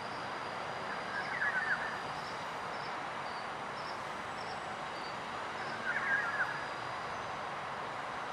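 Steady outdoor background noise with a short bird call twice, about a second in and again about six seconds in.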